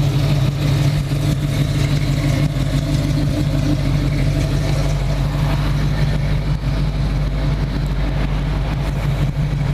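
1979 Pontiac Firebird Trans Am's brand-new 6.6-litre V8 idling smoothly and steadily.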